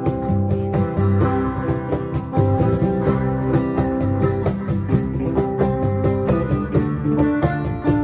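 Live band playing an instrumental passage before the vocals come in: strummed acoustic guitar and electric guitars over a low bass line, with a cajon keeping a steady beat.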